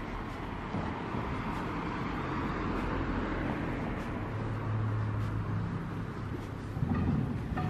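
Street traffic noise: a car drives past on the road alongside, its tyre noise swelling and fading, with a low engine hum about halfway through and a brief louder rumble near the end.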